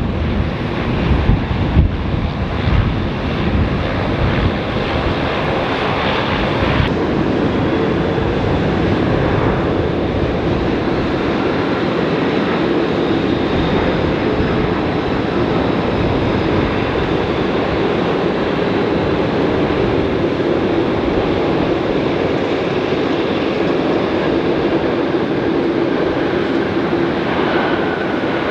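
Airbus A330 jet airliner landing and rolling out on the runway: a steady jet engine roar with a faint whine, and a higher whine joining near the end. Wind buffets the microphone in the first few seconds.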